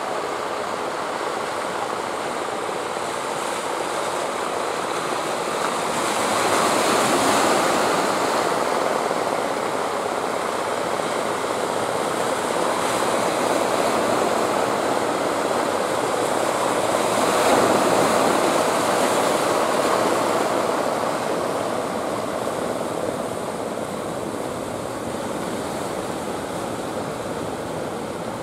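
Rough sea surf breaking against the rocks and concrete breakwater blocks, a steady rushing wash that swells louder twice, about a quarter of the way in and again past the middle.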